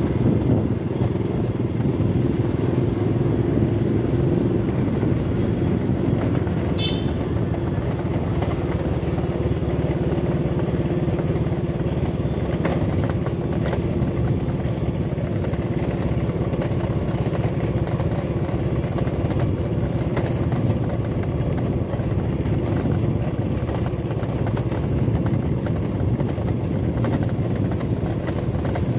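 Motorcycle being ridden at a steady speed: its engine runs with an even, continuous low rumble, along with road noise.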